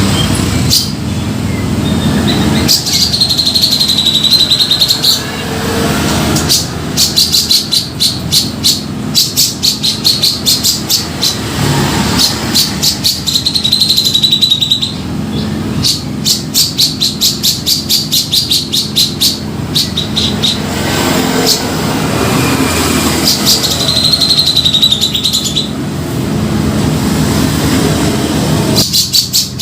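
Grey-cheeked bulbul (cucak jenggot) calling, used as a lure call. It gives runs of rapid, harsh chattering notes, about three to four a second, alternating with wavering high whistled phrases. A steady low rumble runs underneath.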